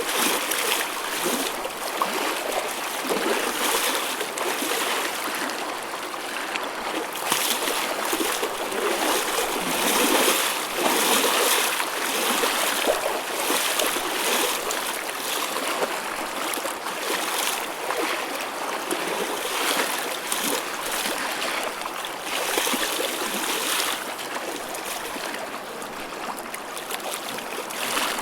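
Choppy ocean waves: a continuous rush of water broken by irregular splashes and swells, loudest around the middle.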